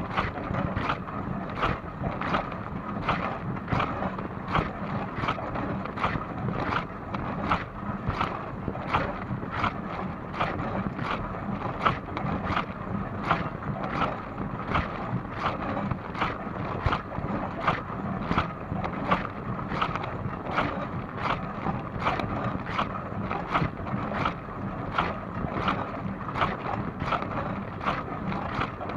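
Dishwasher running mid-cycle: water spraying and splashing inside the tub over a steady hum, with a regular splash about twice a second.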